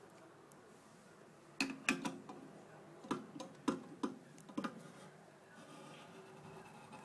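A run of about eight sharp clicks and light knocks over some three seconds, starting about a second and a half in: hard parts of a pod espresso machine being handled.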